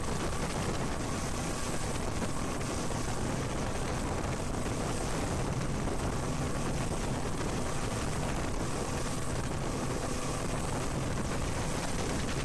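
Motorboat underway at cruising speed: a steady low engine hum under a constant rush of wind and water noise.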